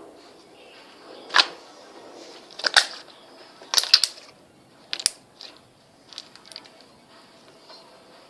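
Slime being squeezed and played with by hand, giving a series of sharp pops and clicks as air pockets burst, the loudest four in the first five seconds and smaller ones after.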